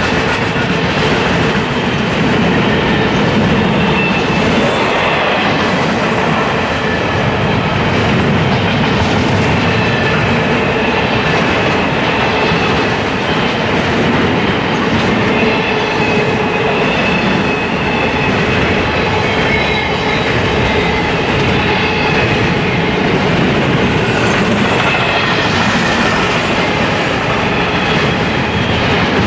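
Double-stack intermodal container train passing at steady speed: a continuous rolling noise of steel wheels on the rails, with thin high wheel squeals that come and go.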